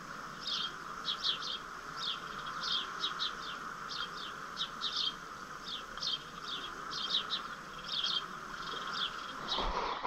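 Birds chirping: many short, high chirps that fall in pitch, often in quick twos and threes, over a steady faint hiss. Near the end there is a knock as the camera is handled.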